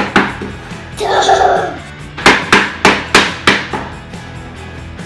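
Sharp knocks of a small wooden tool striking and chipping a hard-packed sand dig-out block: a couple near the start, then a quick run of about five knocks in the middle. Background music plays throughout.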